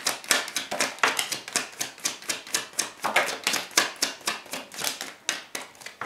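Tarot deck being shuffled by hand: a rapid run of crisp card clicks and slaps, several a second, thinning out near the end.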